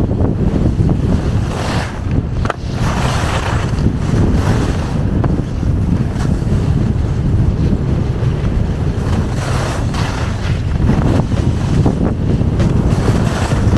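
Wind rushing over the microphone during a downhill ski run, with the hiss of skis on snow swelling several times with the turns.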